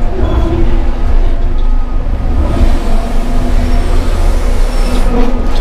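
Twin diesel engines of a Cat 6030 hydraulic mining shovel running at high revs under load while the bucket digs, heard from inside the cab as a loud, steady rumble.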